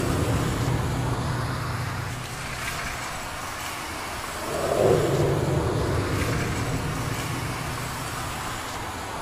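Unexplained low, drawn-out droning sound heard from the sky, the kind reported as 'trumpets in the sky', over a steady low hum. It swells louder about four and a half seconds in and slowly fades again.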